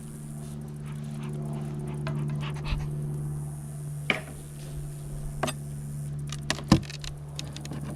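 Steady low hum of honeybees buzzing at an open beehive, broken by sharp knocks and scrapes as the wooden super box and its frames are handled. The loudest knock comes about two-thirds of the way in.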